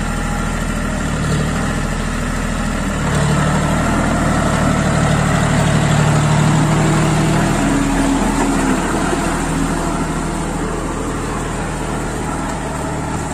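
Diesel engine of a John Deere tractor running, revving up louder about three seconds in as it works to drive out of the soft mud it is slightly stuck in.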